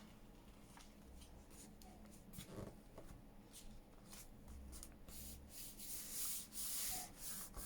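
Faint rustling and rubbing of paper being handled and worked, with scattered light ticks; the rubbing gets louder in the last couple of seconds.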